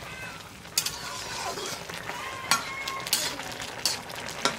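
Metal spatula stirring eggplant pieces in an iron karahi over a steady sizzle. The spatula scrapes and clinks sharply against the pan about five times.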